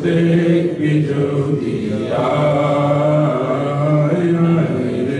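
A man's voice singing a Bengali Islamic nasheed, drawing out long held notes that step slowly from pitch to pitch in a melismatic phrase.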